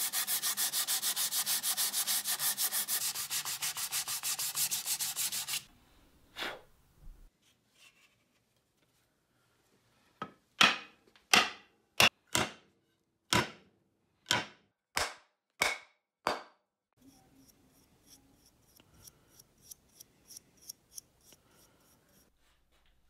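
Sandpaper strip pulled back and forth around a wooden axe handle in a fast, even rasp that stops about five and a half seconds in. A string of about ten sharp knocks follows, roughly two a second, and then faint light ticking near the end.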